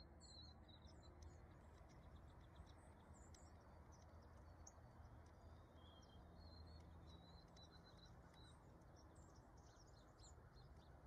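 Small songbirds giving faint, short, high chirps scattered throughout, over a low steady background hum.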